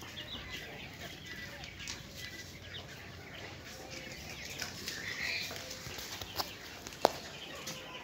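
A crowd of young quail chicks peeping and chirping softly over a steady rustle of birds moving on a sandy floor, with a single sharp click about seven seconds in.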